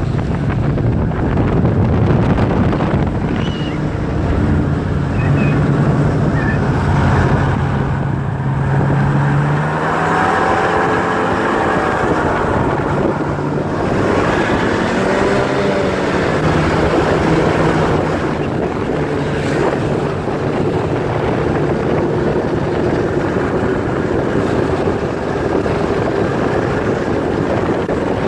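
Snowmobile engines running at speed on the trail, the engine pitch rising and falling several times through the middle, with wind on the microphone.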